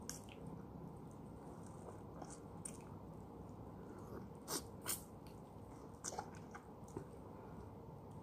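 A person biting and sucking on a fresh lemon wedge: faint wet mouth sounds, broken by a few short smacks, the two loudest about halfway through.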